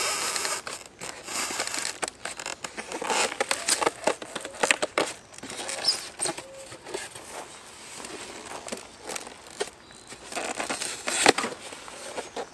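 Polystyrene foam packing ends being worked off a plastic-wrapped griddle: irregular scraping, rubbing and crackling of foam against plastic wrap and metal, with scattered clicks and knocks.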